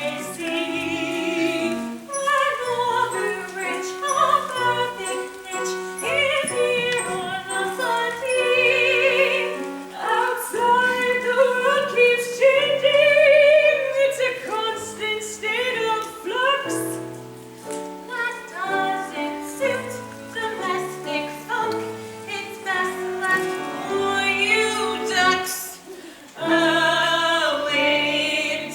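Voices singing a show tune from a stage musical over instrumental accompaniment, with the singing held and stepping between notes, and a brief drop in level near the end before it resumes.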